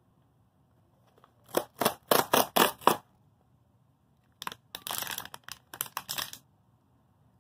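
Plastic wrapper of an ice-cream bar crinkling as it is handled: a run of about six sharp crinkles, then about two seconds of denser rustling as the wrapper is pulled open.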